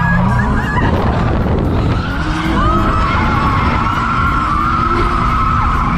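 Drift car's engine revving hard with tyres squealing through a long slide, heard from inside the cabin. A high, wavering squeal holds from about halfway in.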